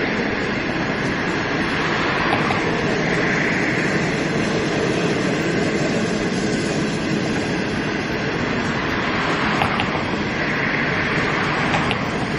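Green-liveried Chinese passenger coaches rolling past close by: a steady rumble and rush of steel wheels on rail, with a few faint clicks in the last seconds.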